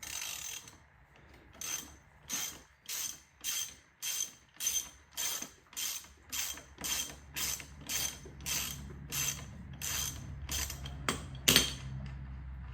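Hand ratchet wrench worked in a steady back-and-forth rhythm, about one stroke every 0.6 s, on the front-end bolts of a dirt bike, ending in one sharp louder click. A low steady hum comes in partway through.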